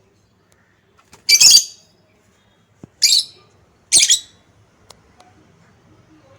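A bird giving three short, shrill squawks about a second apart, with a fourth just starting at the end.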